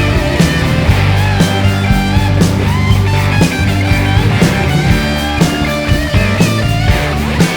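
Blues-rock band playing an instrumental break: an electric guitar lead with bending notes over bass and drums keeping a steady beat.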